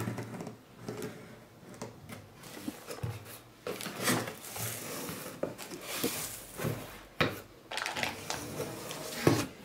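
A blade slitting the packing tape on a cardboard box, then the cardboard flaps opened and the paper instructions and plastic-wrapped parts inside handled: irregular scraping, rustling and crackling, with a sharp knock near the end.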